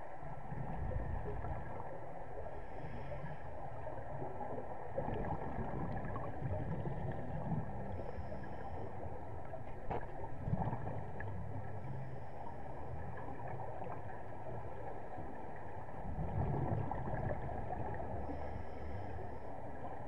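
Underwater scuba ambience: a steady muffled rumble with a diver's regulator breathing, exhaled bubbles gurgling up in swells every four or five seconds with faint hisses of inhalation between them.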